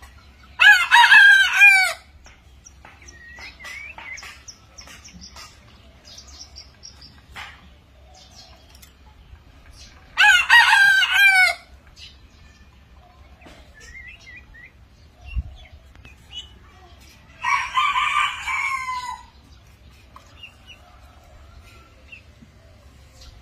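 Junglefowl rooster crowing twice, short clipped crows about ten seconds apart. About eighteen seconds in comes a different, lower and rougher crow, and faint chirps and clucks sound in between.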